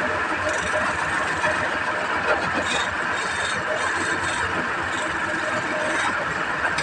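Wood lathe running steadily while a hand-held turning tool cuts the spinning wood, with short hissing scrapes of the cut coming and going.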